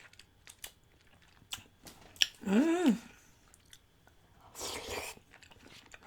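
Close-miked mouth sounds of a person eating: soft chewing clicks and lip smacks. A short hummed "mm" comes about two and a half seconds in, and a breathy rush of air comes near five seconds.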